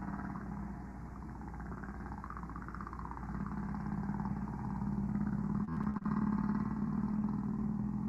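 Recorded humpback whale song: low moaning tones, louder from about three seconds in, with higher wavering cries above them.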